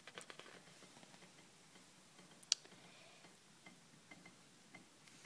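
Faint paper handling as an old comic book's cover is turned open: soft crackles of the pages with a few small ticks, and one sharp click about two and a half seconds in.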